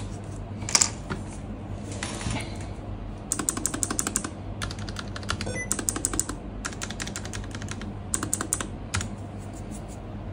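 Keys of a Keychron K11 Pro keyboard with clicky low-profile Gateron Blue switches being pressed in quick runs of sharp clicks, starting a few seconds in, after a couple of single clacks and some handling.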